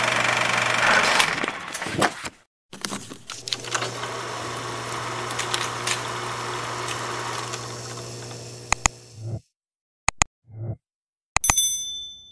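Sound effects of a film projector running, a steady mechanical whir and clatter with scattered clicks, which stops about nine seconds in. A few sharp clicks, a short low thump and a brief bright ding follow near the end.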